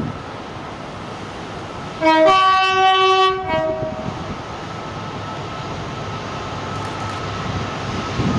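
Class 66 diesel locomotive's two-tone horn, sounded about two seconds in for roughly two seconds, its two notes alternating. After it, the steady rumble of the approaching freight train grows slowly louder.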